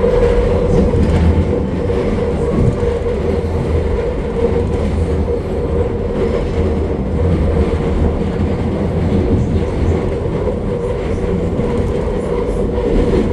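Seoul Subway Line 2 train running along the track: a steady rumble of wheels on rail with a constant hum.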